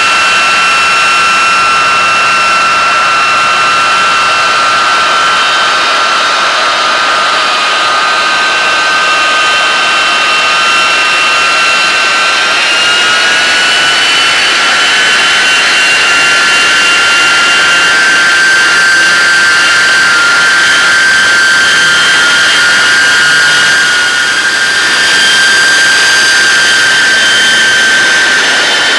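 Boeing B-52 Stratofortress's eight military JT3-family jet engines running at taxi power: a loud, steady jet whine as the bomber rolls past. The whine steps slightly up in pitch about halfway through.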